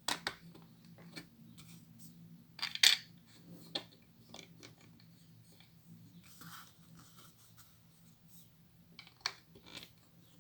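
Small plastic Lego pieces clicking and scraping as they are handled and pressed together, in irregular sharp clicks, the loudest a little under three seconds in.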